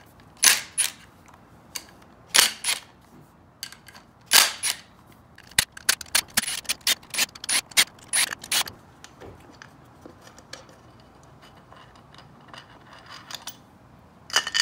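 Hand ratchet wrench clicking in short bursts while the clutch cover bolts are loosened. There is a quick run of clicks in the middle, then fainter, sparser ticking.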